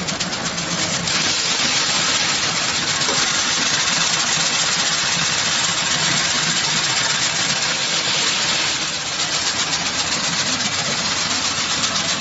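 Grain destoner (double-layer stone removal machine) running: a steady, fast mechanical rattle from its vibrating screen deck, with the hiss of grain pouring through it. The hiss grows louder about a second in and eases back near the nine-second mark.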